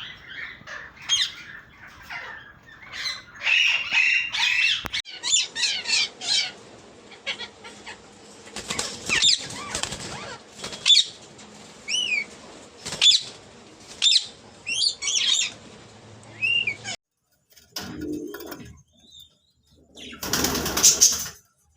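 Birds calling with many short chirps and squawks, some gliding up and down in pitch, that stop abruptly. Near the end comes a burst of wing flapping.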